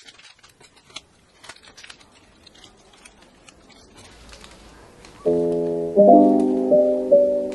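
Faint rustling and clicks of cards in clear plastic sleeves being handled. About five seconds in, background music with loud electric-piano chords begins.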